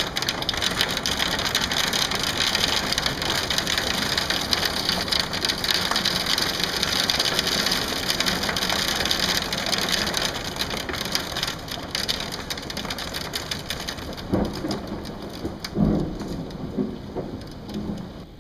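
Hail and rain pelting down hard, a dense, continuous clatter of many small impacts that eases somewhat over the last few seconds. A few brief, louder low thumps come in the last four seconds.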